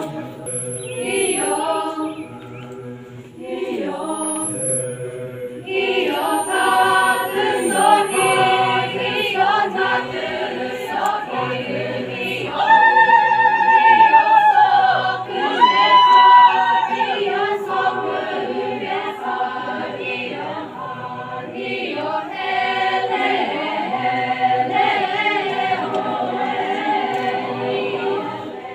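A large group of young men and women singing a folk song together as a choir. For a few seconds in the middle one voice rises clearly above the group.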